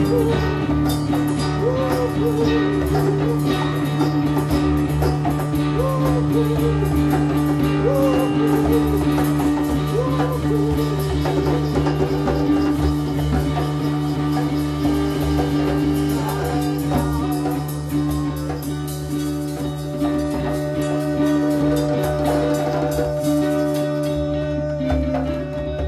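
Jam-band music with drums and guitar over a steady low drone, and a wavering melody line that bends up and down. It eases off slightly near the end.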